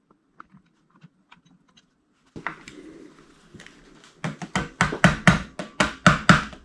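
Hand-tool work on an engine's top end. Faint scattered clicks, then a scrape about two seconds in, then a rapid, regular run of sharp clicking knocks, about three or four a second, from about four seconds in.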